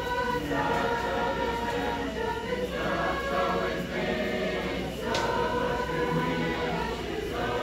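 A family group singing together unaccompanied, holding long notes that change about once a second.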